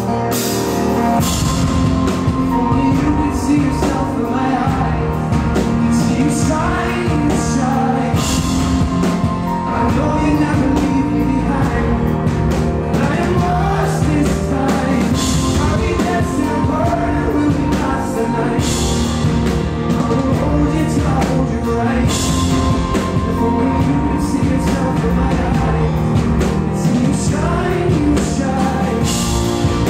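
A man singing over a strummed acoustic guitar, with a backing band and drums playing along.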